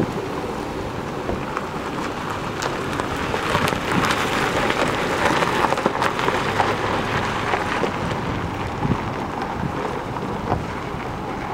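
Wind buffeting an outdoor camera microphone: a steady rushing hiss with irregular crackles, loudest about midway through.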